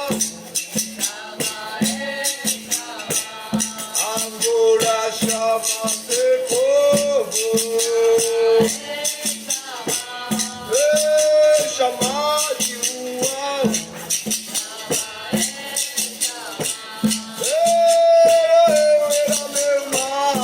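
Capoeira roda music: group singing over berimbau, shaker rattle and percussion keeping a steady rhythm.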